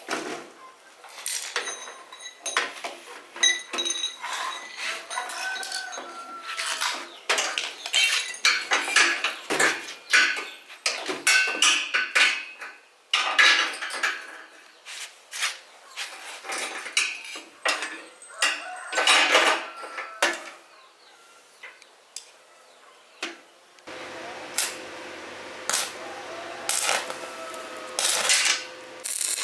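Small metal parts and tools clinking, knocking and rattling as they are handled, with many sharp strikes, some of them ringing. Near the end a steady machine hum starts under the clinks.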